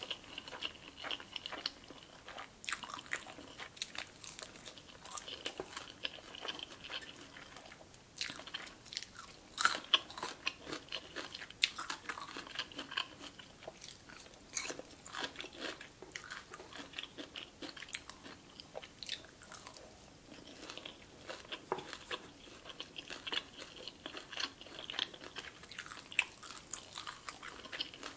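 Close-up chewing and crunching of crispy Korean fried chicken, an irregular run of crisp crackles as the fried coating breaks between the teeth.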